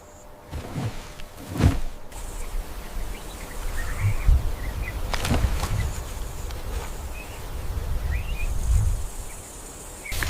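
Outdoor nature ambience: short bird chirps through the middle, a high insect buzz in the last couple of seconds, and a few low thuds and clicks.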